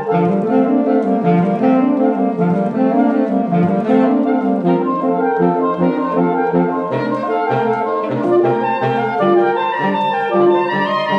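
A saxophone quartet (soprano, alto, tenor and baritone saxophones) playing together in a busy texture of repeated notes. A low part rises and falls in repeated arcs over the first few seconds, then turns to short low notes pulsing over a steady upper line in the second half.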